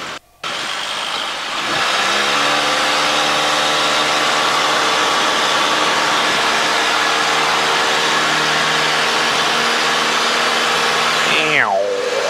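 Cub light aircraft's engine and propeller opening up to full throttle for a takeoff run: it comes in suddenly about half a second in, rises in pitch over the next second or so, then holds steady at full power, with the rush of air and ground noise over it.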